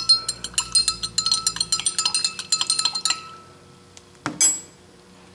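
A teaspoon stirring sugar into a half-full drinking glass, clinking rapidly against the glass for about three seconds, then one ringing tap against the glass a second later.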